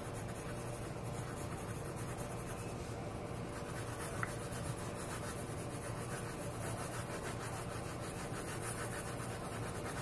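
Graphite pencil scratching and rubbing on drawing paper in light, steady sketching strokes.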